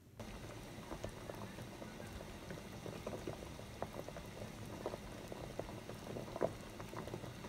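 Gamjatang (pork-bone and potato stew) bubbling at the boil in a pot: a steady simmering hiss scattered with many small bubble pops.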